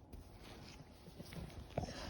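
Golden retriever puppy snoring and breathing softly in its sleep, with a stronger breath near the end.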